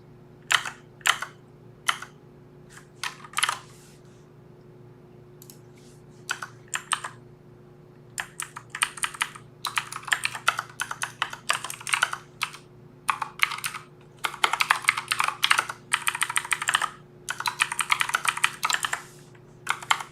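Computer keyboard typing: a few scattered keystrokes, a pause of a few seconds, then quick runs of typing from about eight seconds in. A faint steady hum sits underneath.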